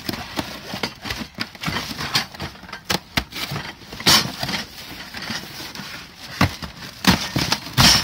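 A cardboard box being opened by hand: the flaps scrape and rustle, with irregular sharp crackles. The loudest scrapes come about four seconds in and again near the end.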